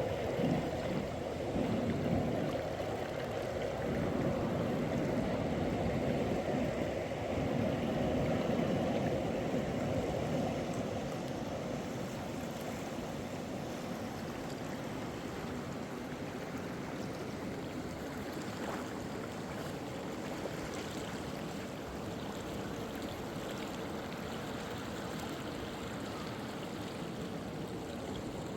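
Flowing stream or river water, a steady rushing noise that is a little louder in the first ten seconds or so.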